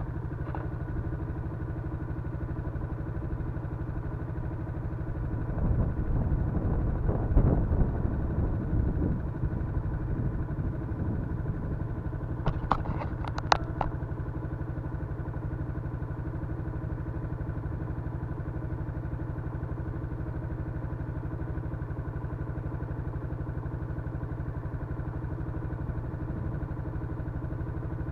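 Yamaha Crypton-X underbone motorcycle's single-cylinder four-stroke engine idling steadily. It swells louder briefly about six to nine seconds in, and a few sharp clicks come about thirteen seconds in.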